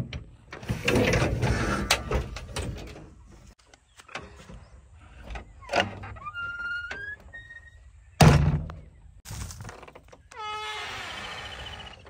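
Cab door of a JCB 3DX backhoe loader being worked by hand: rattles and latch clicks, then one heavy thunk about eight seconds in. Near the end a wavering, high-pitched animal-like call starts.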